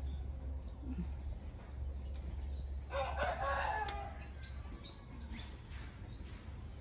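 A rooster crowing once, about three seconds in, lasting about a second, with a few short bird chirps around it.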